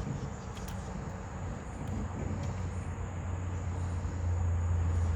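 A steady low hum that swells a little over the second half, with a few faint clicks from wiring being handled and folded together.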